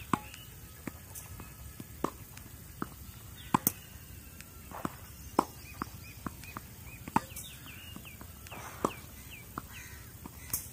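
Tennis balls being hit with a racket and bouncing on a clay court: a string of sharp single pocks at irregular intervals, the loudest from the feeding racket close by.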